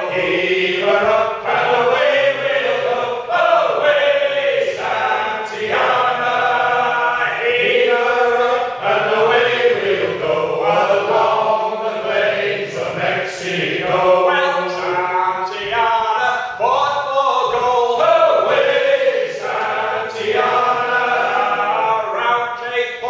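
A small group of men singing a sea shanty together, unaccompanied.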